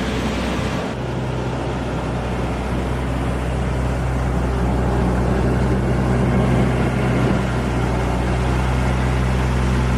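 Mercedes-Benz S65 AMG's 6.0-litre twin-turbo V12 idling with a steady low hum, growing slightly louder through the stretch.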